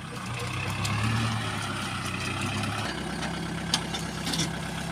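Tractor diesel engine running steadily while its rear rotary tiller churns through flooded paddy mud. The engine note changes about three seconds in, and a couple of short sharp knocks come near the end.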